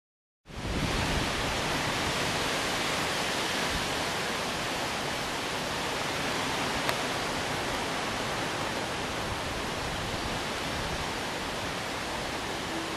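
Steady rushing noise on an outdoor camcorder soundtrack, with an uneven low rumble like wind on the microphone. It cuts in abruptly about half a second in, and there is a single click near the middle.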